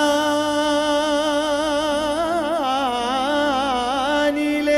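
A male singer through a microphone holds one long note of a mawwal, a free-rhythm vocal improvisation. The note is steady at first, wavers in a rapid ornamented vibrato through the middle, then steadies again near the end.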